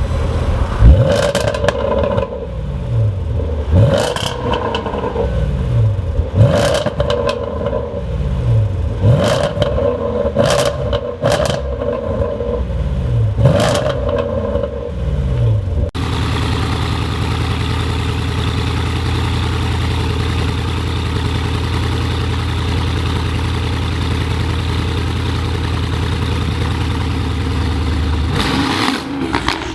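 Range Rover Sport SVR's supercharged V8 revved hard about six times in quick blips, with exhaust pops and crackles as the revs fall. About 16 s in, the sound cuts to a steady engine idle, and one more rev comes near the end.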